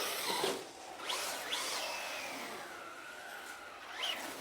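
Electric RC car's motor whining as the throttle is blipped: two short rising whines about a second in, a longer whine that slowly falls in pitch, and another sharp rise near the end.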